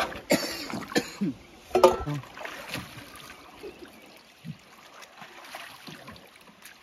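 A few sharp knocks and clatters in the first two seconds, then river water splashing and trickling as a jeep standing in a shallow river is washed by hand, over the steady flow of the river.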